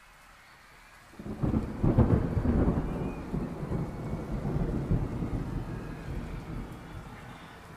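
Thunder with rain: a low rumble breaks in about a second in, peaks soon after and slowly dies away, over a faint steady hiss of rain.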